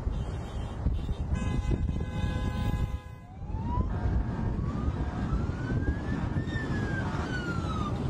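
Wind and road noise from a fast-moving car, with a steady horn blast lasting about a second and a half starting about a second in. After a brief drop, a siren wails, rising slowly in pitch and falling back near the end.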